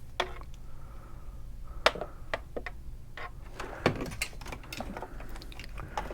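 Scattered clicks and knocks of a cable and tools being handled, with a sharp click about two seconds in and another about four seconds in.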